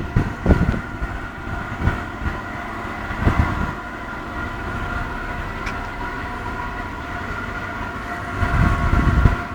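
A machine running steadily with a whine of several fixed tones, under irregular low rumbling.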